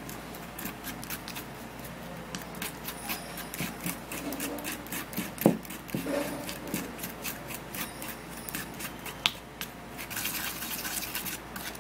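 Plastic spoon stirring a runny baking-soda paste in a plastic bowl: a steady run of quick wet scrapes and clicks, with a sharper knock of the spoon against the bowl about five and a half seconds in and again near nine seconds.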